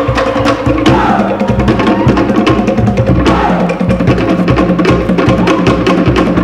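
Cook Islands drum ensemble playing a fast, driving rhythm: wooden slit log drums (pate) clattering in rapid strokes over the deep thump of a skin bass drum (pahu).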